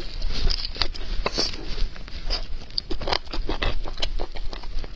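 Biting into and chewing soft, gelatinous beef bone marrow right at the microphone: irregular wet clicks, smacks and squelches of the mouth.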